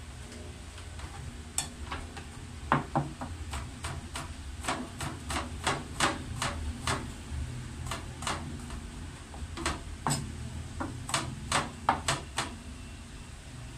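Cleaver chopping garlic cloves on a plastic cutting board: a run of sharp, uneven knocks, about two or three a second, starting about a second and a half in and stopping near the end.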